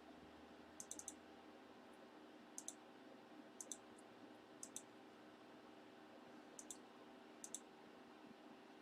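Faint computer mouse clicks, scattered and often in quick pairs or threes, over a low steady hum.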